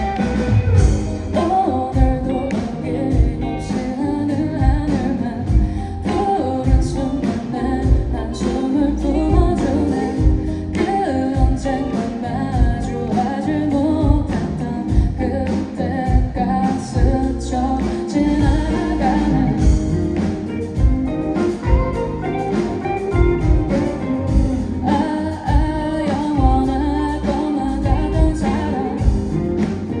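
Live pop-rock band performance: a woman singing over a Telecaster-style electric guitar and a drum kit keeping a steady beat.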